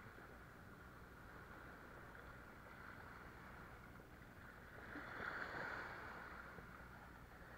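Faint sea water washing and lapping against breakwater rocks, swelling briefly about five seconds in.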